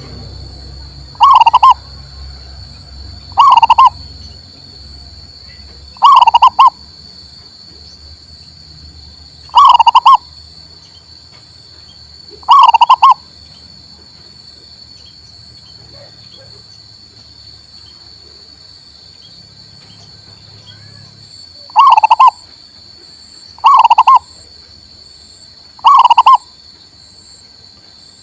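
Male zebra dove (perkutut) cooing: eight short phrases, about two to three seconds apart, with a pause of about nine seconds in the middle. A steady high-pitched hiss runs underneath.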